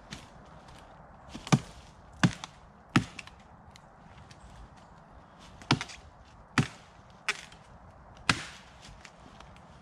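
Small axe chopping wood: seven sharp strikes, a group of three then, after a pause, a group of four.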